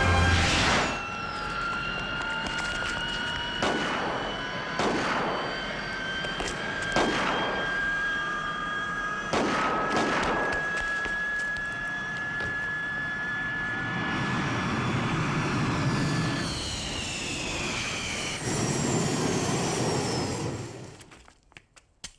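Rocket-belt jetpack flying: a loud steady jet hiss with thin whistling tones that slowly rise in pitch, broken by several sharp cracks in the first half. It dies away about a second before the end.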